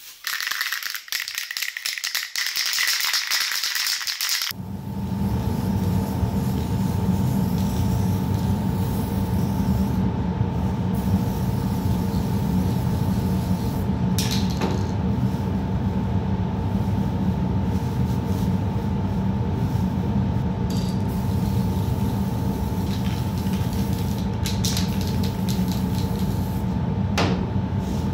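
Dry wood wool rustling and crackling as it is handled. About four seconds in, a steady mechanical hum with a constant mid tone takes over, broken twice by short hisses from an aerosol spray-paint can.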